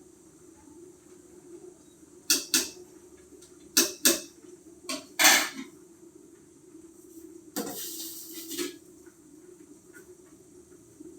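Kitchenware knocking and clattering: six sharp knocks, in pairs and singly, then about a second of hiss, over a steady low hum.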